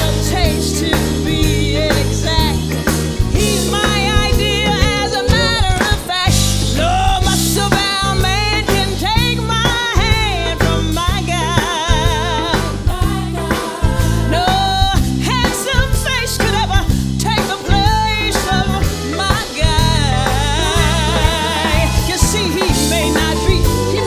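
Live soul band playing with drums, bass, guitar and keyboards while a woman sings long runs with heavy vibrato, backed by female backing singers.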